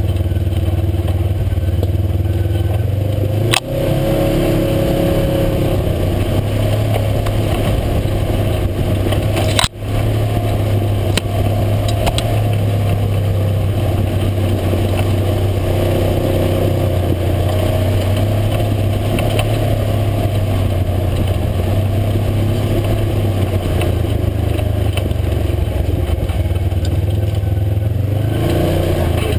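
UTV engine running steadily under way, with clatter from the machine over the trail. The sound briefly drops out twice, and the engine note climbs near the end.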